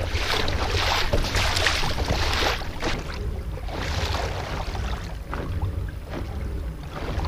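Lake waves splashing and slapping against a kayak's hull as it moves through chop, in surges that are loudest in the first few seconds and again about four seconds in. Wind rumbles on the microphone underneath.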